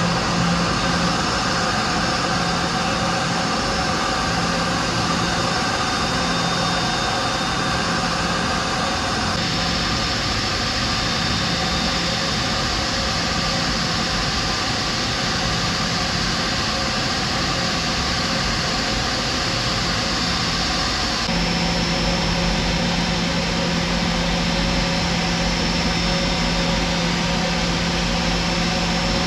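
Steady jet airliner engine noise: a continuous rumble with steady high tones over it. The sound shifts abruptly twice, about nine and twenty-one seconds in.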